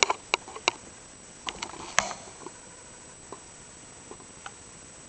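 A scatter of small, sharp clicks and taps, most of them in the first two seconds, then a few faint ticks.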